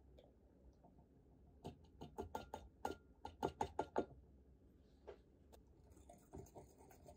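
Faint light taps of a paper stick packet of matcha powder being tapped to shake the powder into a glass measuring beaker: a quick run of taps lasting about two seconds, with a couple more soon after.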